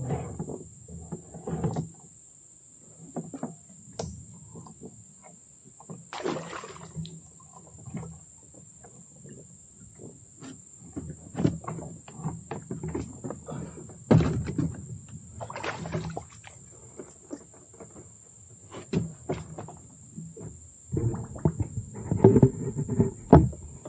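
Irregular knocks, bumps and rustles from a man moving about and handling gear in a small metal boat on the water, with a denser run of thumps near the end. A steady high-pitched tone runs underneath.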